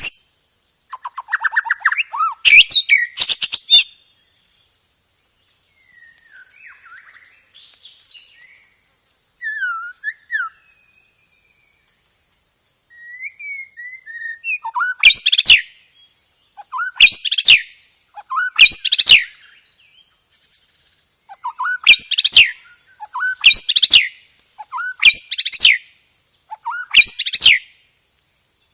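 White-rumped shama (murai batu) singing loud, clear, harsh phrases: a quick run of notes near the start, softer whistled glides in between, then from about halfway a string of sharp rapid-fire bursts repeated every second and a half or so. A faint steady high tone runs underneath.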